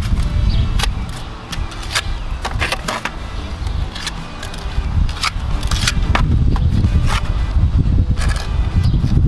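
Steel mason's trowel scraping and tapping as mortar is spread onto the back of a concrete veneer stone, a string of short scrapes and clicks, over a steady low rumble.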